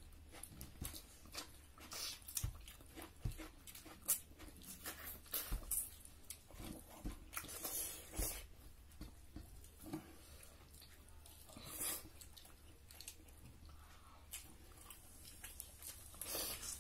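Close-miked chewing and mouth sounds of people eating duck curry and rice by hand: irregular wet smacks and clicks, with a few louder bites.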